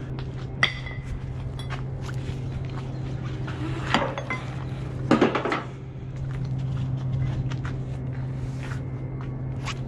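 Cargo strap being handled over a flatbed load of OSB bundles: scattered metallic clicks and clinks, with a louder clatter about four and five seconds in. A steady low hum runs underneath.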